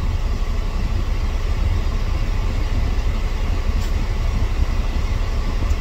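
Steady low rumble of an idling semi-truck's diesel engine.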